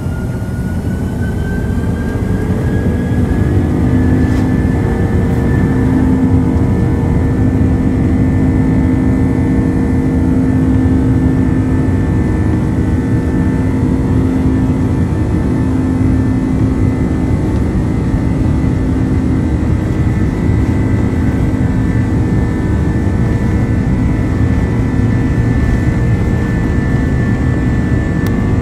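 Airbus A330-200's Pratt & Whitney PW4168A turbofans spooling up to takeoff thrust, heard from inside the cabin: a whine rises over the first few seconds, then holds steady over loud low engine and rolling noise as the airliner accelerates down the runway.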